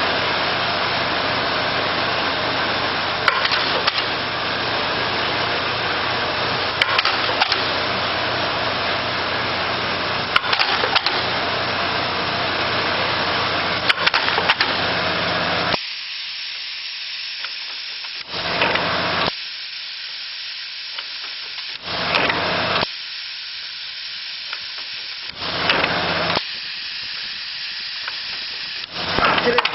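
ED-MLC-201-6 coffee-cup filling-sealing machine running its pneumatic cycle. For about the first half there is a steady hum and hiss, with a sharp click about every three and a half seconds. Partway through the continuous noise drops out, leaving a hiss about a second long that recurs on the same three-and-a-half-second cycle.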